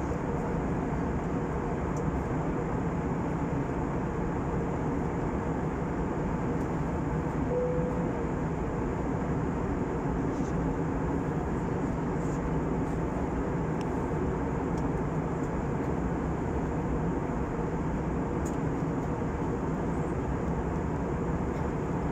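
Steady cabin noise of a passenger airliner in flight: an even rush of air and engine drone, heaviest in the low range, with a faint steady hum. A brief faint tone sounds about seven and a half seconds in.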